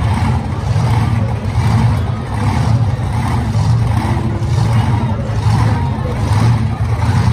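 Monster truck engines idling at the start line with a loud, steady low rumble.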